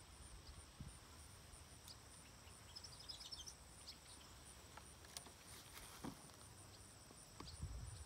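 Near silence: faint rural outdoor ambience with a steady high-pitched whine, a few faint bird chirps about three seconds in, and a few faint clicks.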